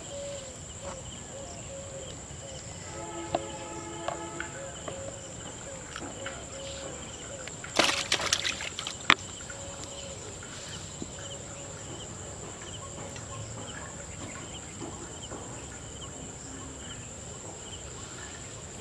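Rural outdoor ambience with a steady high-pitched insect drone and faint repeating chirps. About eight seconds in there is a short, loud burst of noise with a few knocks, then a sharp click.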